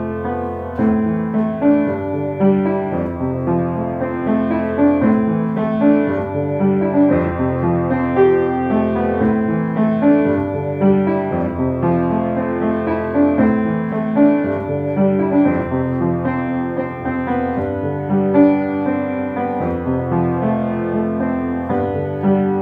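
Solo piano playing a flowing piece of overlapping, sustained chords and melody, mostly in the low and middle range.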